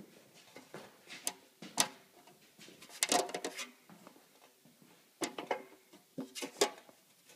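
Japanese pull saw cutting lengthwise along a wooden dowel, in short strokes with pauses between them: a couple of single strokes early, a quicker run about three seconds in, and another run near the end.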